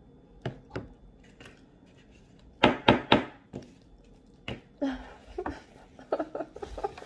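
Dishes and cutlery knocking on a table: a couple of light clicks, then three loud sharp knocks in quick succession about two and a half seconds in, followed by a run of lighter taps and clatters.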